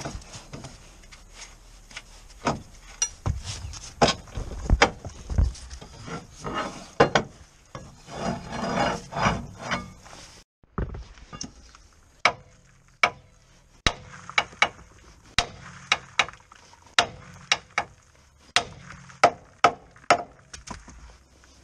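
Hand tools working on a car's front suspension: a long breaker bar and socket on the bolts, giving a series of sharp metallic clicks and knocks with some scraping and rubbing. In the second half the clicks come about once or twice a second.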